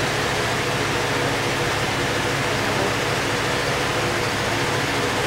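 Steady hiss with a faint low hum, unchanging throughout, like a fan or air conditioner running.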